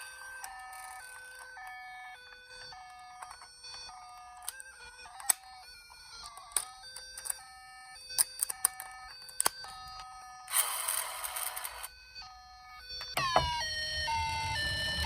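Toy ambulance's electronic two-tone siren sounding the Japanese high-low 'pii-poo' pattern, the two notes alternating about every half second, with scattered sharp clicks. There is a burst of hiss about ten seconds in, and near the end a louder second siren starts with a falling sweep.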